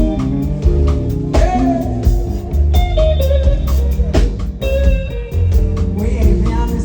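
Loud music with a heavy bass beat and a plucked guitar melody.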